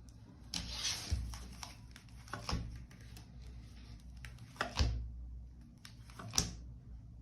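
Tarot cards being handled: a short papery rustle of the deck about half a second in, then three sharp card snaps spaced about two seconds apart.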